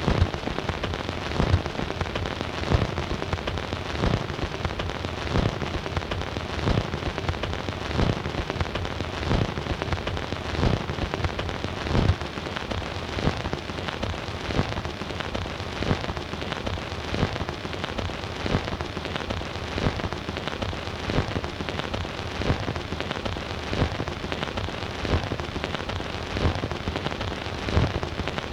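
Stylus running in the lead-in groove of a 78 rpm shellac record on a Bush record player: a steady hiss thick with crackle, with a louder click recurring about every 1.3 seconds.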